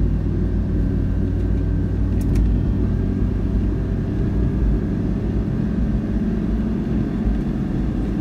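Car driving steadily through a road tunnel, heard from inside the cabin: a steady low rumble of engine and tyre noise.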